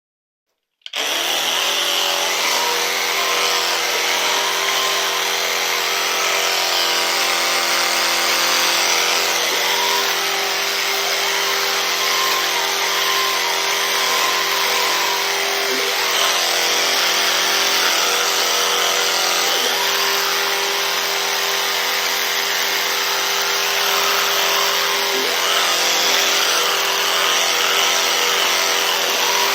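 A small electric motor switched on about a second in, then running steadily with an even motor whine over a rushing hiss of air.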